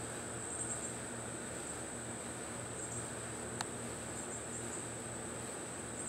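A chorus of insects trilling steadily at a high pitch, over a steady background hiss. One sharp click comes a little past halfway through.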